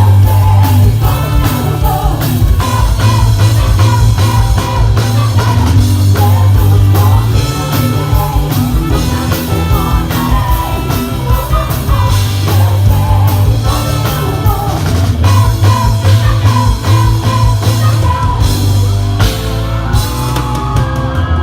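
A band playing a rock-style gospel song, with a drum kit, a heavy bass line, guitar and singing.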